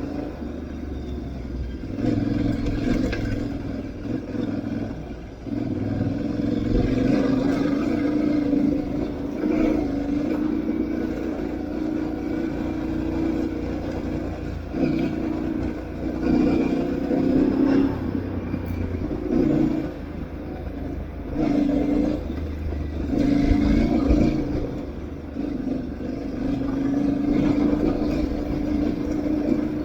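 Aprilia Tuareg 660's parallel-twin engine running on an off-road ride, its note rising and falling as the throttle is opened and closed, with short dips every few seconds.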